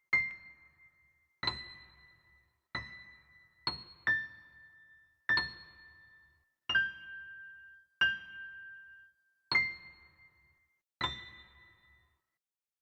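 A slow, sad tune of single bell-like keyboard notes, one about every second and a half, each struck and then fading out. The tune steps down in pitch through the middle and comes back up near the end.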